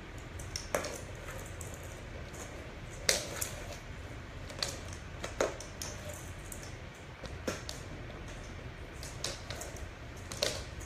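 Irregular sharp clicks and knocks, about eight in all, the loudest about three seconds in, as an Old English Sheepdog puppy plays with a self-moving ball toy on a hardwood floor.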